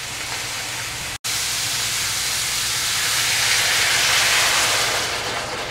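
Beef sizzling in a hot stainless steel pan. After a brief break about a second in, water poured onto the hot seared meat hisses and steams, growing louder, then easing off near the end.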